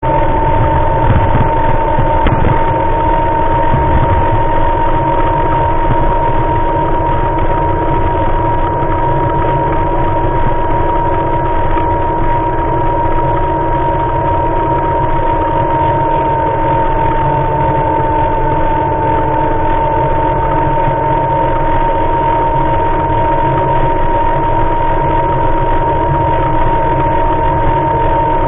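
A small motor running with a steady, high whine that holds one pitch, with a fainter hum beneath it and a low rumble of wind noise on the microphone.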